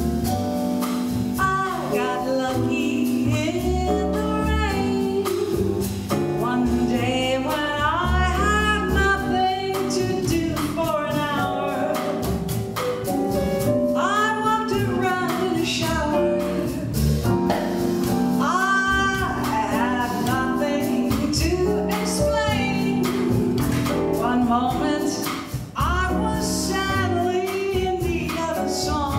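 A woman singing a swing jazz tune live, backed by a small band of piano, upright bass and drums keeping a steady cymbal beat.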